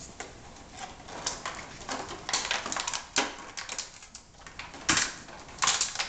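Six-week-old doodle puppies scuffling and playing on a hard floor: a run of scattered clicks, scrapes and rustles from claws and toys, with a few louder scuffling bursts, the loudest near the end.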